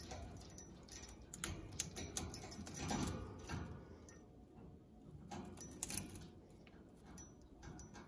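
Congo African grey parrot biting and tearing at a hanging woven wicker ball toy: irregular crunching, crackling and rustling as the beak works the strands, with the toy's small bell jingling as it swings. One sharper snap comes about three-quarters of the way through.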